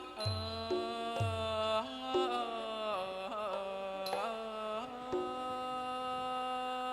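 Thai piphat ensemble playing a classical thao piece: a sustained melody that slides and bends in pitch, over a few low drum strokes.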